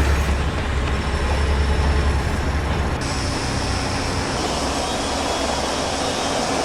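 Steady vehicle or heavy machine engine noise: a strong low drone that drops away about two seconds in, leaving a continuous wash of mechanical noise.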